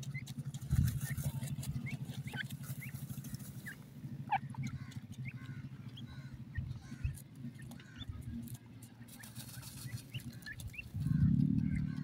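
Grey francolin chicks peeping: many short, high chirps, several a second, scattered throughout. Under them runs a steady low hum that grows louder near the end.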